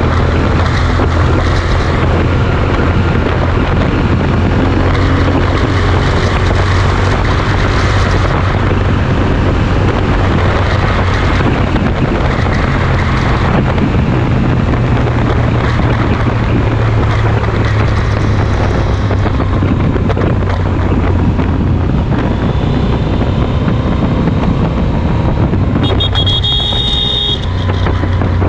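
Yamaha Super Ténéré's parallel-twin engine running steadily at highway speed through a Mivv Speed Edge slip-on exhaust, with wind rushing over the microphone. A brief high-pitched tone sounds near the end.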